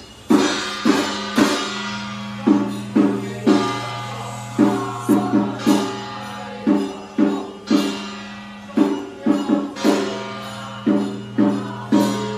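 Music with a percussion pattern of three ringing strikes, repeated about every two seconds over a steady low drone.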